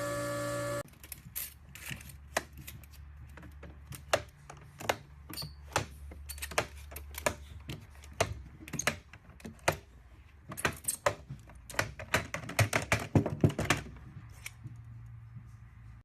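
Irregular mechanical clicking and clacking over a low steady hum, the clicks coming in quicker runs in the later part.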